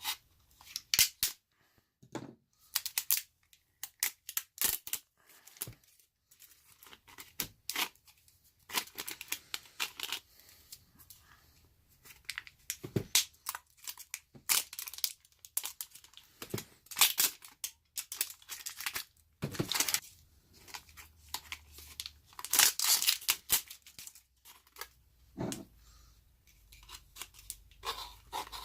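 Saw-blade retail packaging being torn and pulled open by hand, in irregular bursts of ripping and crinkling; the packaging is hard to get open.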